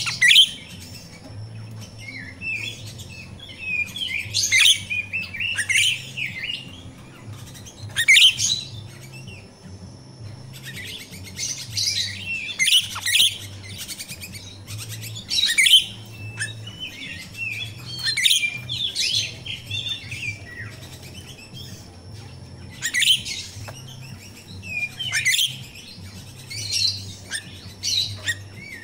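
A jalak rio-rio, a caged starling, singing in repeated bouts of quick, high chirping and chattering phrases, each about a second or two long with short pauses between. A faint steady low hum runs underneath.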